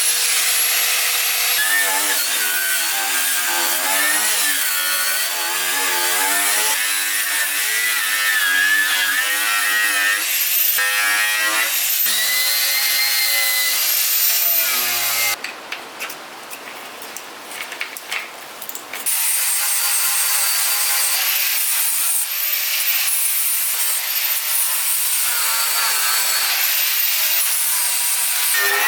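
Handheld power tool stripping paint and rust from car bodywork, its motor whine wavering up and down as it loads against the metal. The tool drops away for a few seconds past the middle, leaving a quieter rasping hiss.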